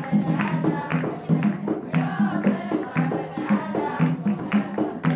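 Traditional Omani folk music: a group of voices singing together over hand drums beating a steady rhythm of about two to three strokes a second.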